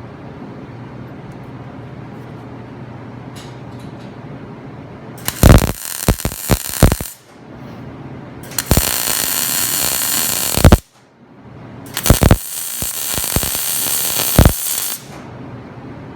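MIG welder arc crackling and hissing in three separate bursts of about two to three seconds each, sharp pops among them, as short plug (rosette) welds are laid. A steady low hum runs underneath before the first burst, about five seconds in.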